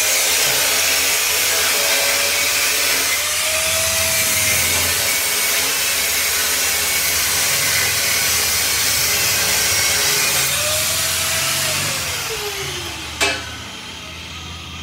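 Handheld electric angle grinder cutting into the steel gate frame, a steady grinding hiss with a whine that wavers as it bites. About twelve seconds in it is switched off and winds down with a falling whine, followed by a single sharp knock.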